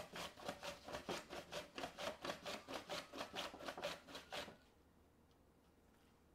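Handheld mandoline slicer: a vegetable is rubbed back and forth across the blade in quick, even rasping strokes, about four or five a second. The slicing stops about four and a half seconds in.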